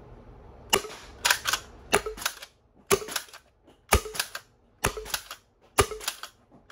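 3D-printed HPA foam blaster with a Cosmic Nomad core firing shot after shot, about seven shots at roughly one a second. Each shot is a sharp pop followed closely by one or two smaller clicks.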